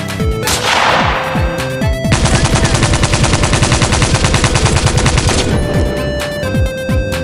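Electronic background music with a falling noise sweep about half a second in, then a fast, even rattle of sharp hits, roughly ten a second, for about three seconds before the music carries on.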